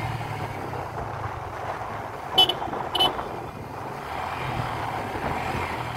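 Two short vehicle horn toots about half a second apart, a couple of seconds in, over the steady hum of a running vehicle engine and road noise.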